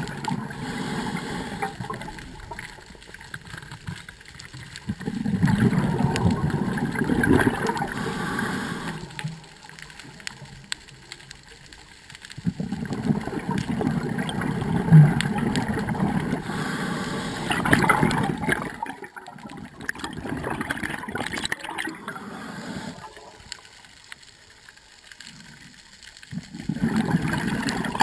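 Scuba diver's regulator breathing as heard by an underwater camera: long gurgling bursts of exhaled bubbles every several seconds, with quieter stretches between, and one short knock midway.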